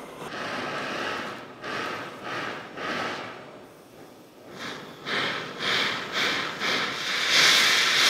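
Jeweller's torch flame hissing into a clay crucible while melting gold, swelling and fading in pulses about twice a second. It turns steadier and louder near the end as the metal becomes molten.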